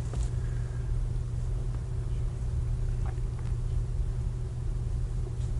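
Steady low hum with an even background hiss, the noise floor of an old studio recording, broken by a few faint clicks.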